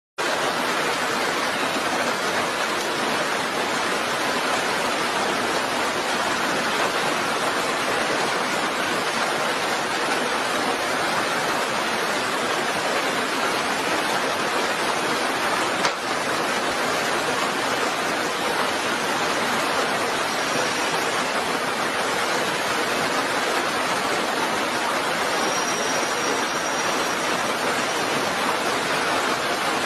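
Steady rain falling: an even hiss, broken only by a brief click about sixteen seconds in.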